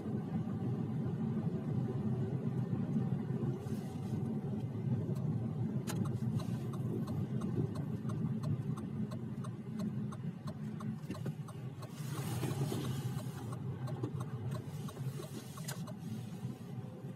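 Lada Vesta on the move: a steady low road rumble with repeated short, sharp knocks from the suspension, the knock that is the fault under investigation.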